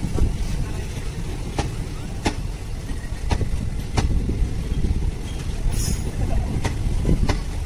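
Indian Railways passenger coaches rolling past: a steady low rumble of wheels on track, with sharp clanks now and then as the wheels cross rail joints.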